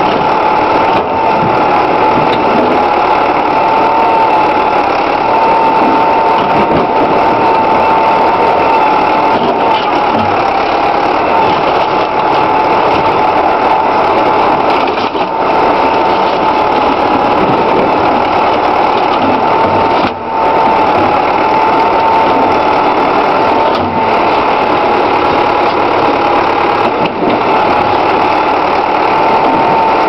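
Backhoe engine running steadily with a high whine that wavers slightly in pitch, while its bucket presses down on a wrecked car. The sound dips briefly about twenty seconds in.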